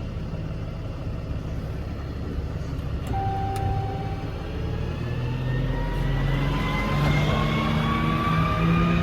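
Ram 5500's 6.7 L Cummins diesel running. About three seconds in a whine comes in, and from about five seconds the engine speeds up with the whine rising in pitch, as the power take-off drive for the truck's hydraulic pump is engaged.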